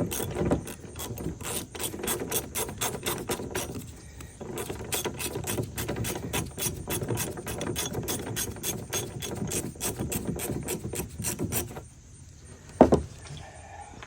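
Half-inch-drive socket ratchet clicking rapidly as a loosened fastener is run off the spindle, with a brief pause partway through. The clicking stops, and a single sharp knock follows near the end.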